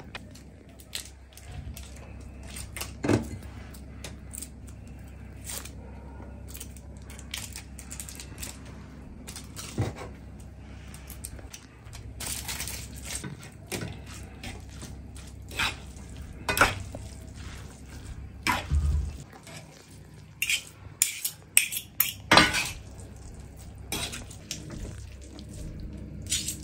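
Metal fork and serving utensil clinking and scraping against a stone-coated frying pan as spaghetti with minced meat is tossed, in irregular knocks that come louder and closer together in the last ten seconds. A low steady hum runs underneath and fades out about two-thirds of the way through.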